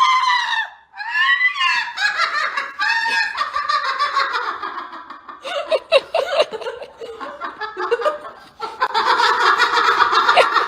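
Laughter, with high, arching vocal cries near the start.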